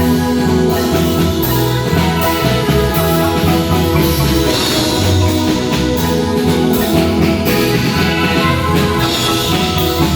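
Marimba band playing live: marimba melody over a bass line and drum kit in a steady dance rhythm.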